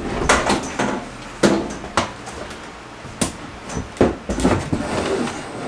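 Wooden wall cabinet knocking and bumping as it is pulled and worked at while still held tight to the wall: a handful of sharp knocks about a second apart over handling noise.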